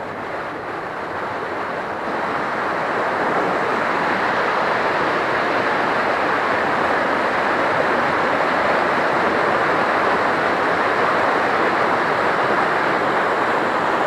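Rushing water of a rocky forest stream running over stones: a steady hiss that grows louder over the first few seconds, then holds.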